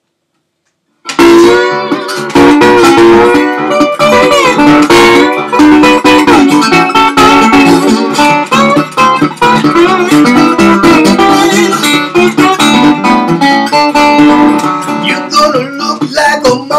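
National tri-cone resonator guitar played with a bottleneck slide: plucked notes with sliding glides between pitches, starting about a second in.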